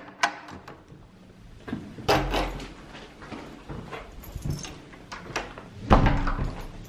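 Keys clicking in a door lock, then a door being opened and shut, with a fuller bump about two seconds in and the loudest bump near the end.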